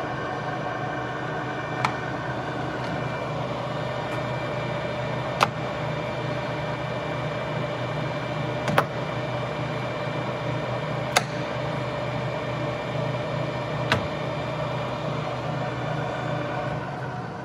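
Dashin Champion 1550 metal lathe running with its 5.5 kW motor and headstock gearing making a steady hum, with five sharp clicks from the carriage controls being worked. Near the end the sound begins to die away as the lathe runs down.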